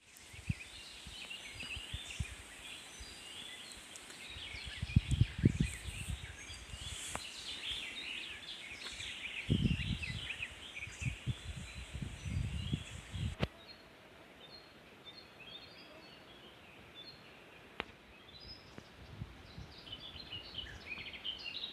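Several birds chirping and singing, with low rumbling bursts on the microphone a few times in the first half.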